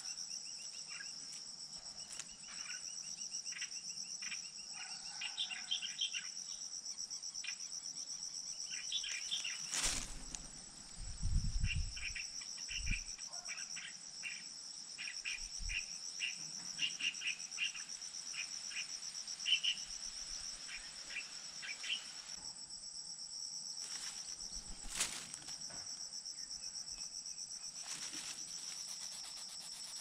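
Insects, crickets by the sound of it, trilling steadily on one high note. The trill drops out for a couple of seconds about three-quarters of the way through. Short high chirps come and go throughout, and a few low thumps sound about a third of the way in.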